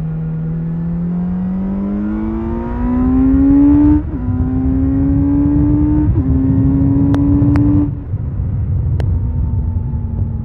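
Kawasaki Z900RS SE's inline-four engine accelerating through the gears: the revs climb, drop sharply at an upshift about four seconds in and again about two seconds later, climb once more, then the throttle closes and the note sinks slowly as the bike rolls on. Wind and road noise run underneath, with three short ticks in the second half.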